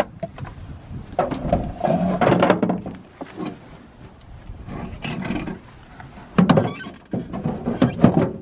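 Scraping, knocking and squeaking of a plastic storage tote and a long-handled wash brush being shifted and stowed in a pickup's bed, with a louder thump about six and a half seconds in and a few sharp clicks near the end.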